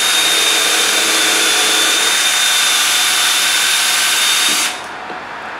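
Cordless drill boring screw holes in a wooden deck plank: the motor spins up with a brief rising whine, runs steadily at full speed for about four and a half seconds, then stops.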